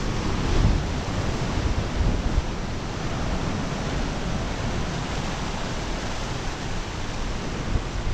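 Sea surf washing against rocks as a steady hiss, with wind noise on the microphone.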